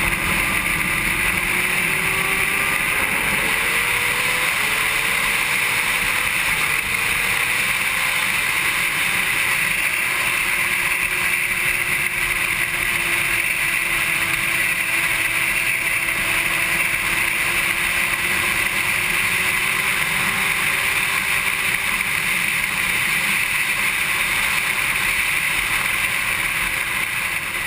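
Onboard sound of a Honda CBR600RR's inline-four on track, heard through a GoPro housing: a steady, loud rush of wind and engine noise, with the engine note faint underneath and slowly drifting up and down in pitch.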